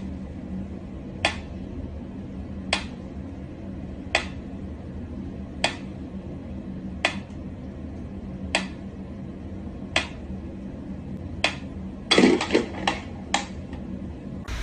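Sharp clicks or taps, one about every second and a half, then a quick flurry of several near the end, over a steady low hum.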